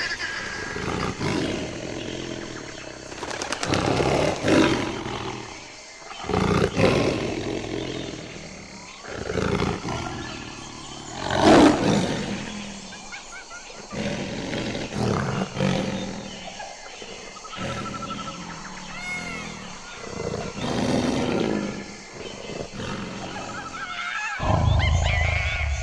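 Tiger roaring and growling again and again, one call every couple of seconds, the loudest about halfway through.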